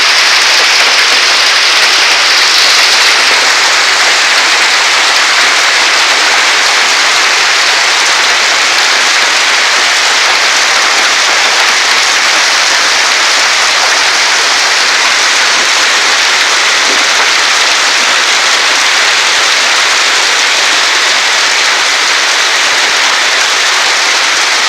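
Hailstorm: hailstones coming down hard in a dense, steady rattle of countless small hits.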